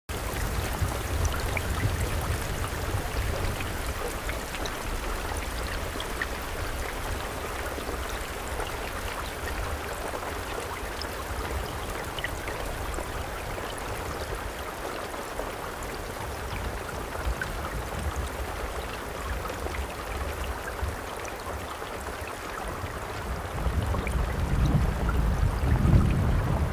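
Steady rain falling, a dense patter of drops. A low rumble underneath swells near the end.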